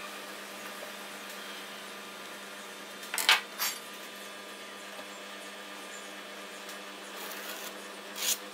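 Marking tools handled on a wooden board and workbench: a steel rule, square and pencil scraping and knocking on the wood, with two short scrapes about three seconds in and another near the end. A steady low hum runs underneath.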